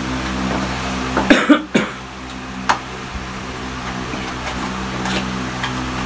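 A man coughs briefly, a short cluster of loud bursts about a second in, over a steady electrical hum. Light clicks from a cardboard microphone-stand box being handled follow.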